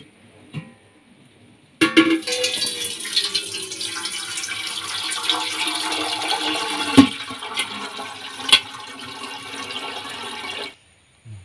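Milky starch water from boiled rice pouring out of a tipped stainless steel pot, through the gap under a clamped steel plate, into a steel pot below. It starts suddenly about two seconds in and stops abruptly near the end, with a few sharp metal clinks along the way.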